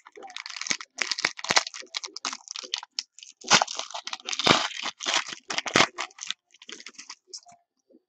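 A trading card pack wrapper being torn open and crinkled by hand: a run of dense plastic crackling and tearing, loudest in the middle of the stretch, settling into a few small clicks near the end.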